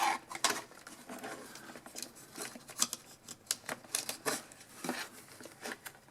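Light, irregular clicks and taps of needle-nose pliers and plastic parts as a snap fitting inside a space heater is worked at.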